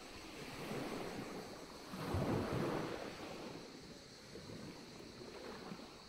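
Small sea waves washing onto a pebble shore, one wave coming in louder about two seconds in and then easing off.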